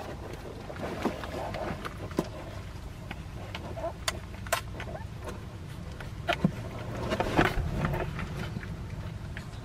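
Newborn puppies nursing: scattered small wet clicks and smacks of suckling, busiest about seven to eight seconds in, over a steady low hum.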